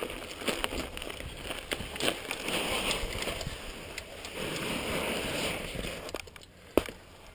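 Mountain bike riding from a dirt trail onto a patch of old snow: tyres crunching and hissing through the snow, with many small clicks and rattles from the bike. It goes quieter about six seconds in, and one sharp knock comes near the end.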